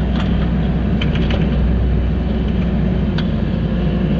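Kubota SVL90-2 compact track loader's diesel engine running steadily under load, with scattered clicks and rattles from the Harley rake working the topsoil.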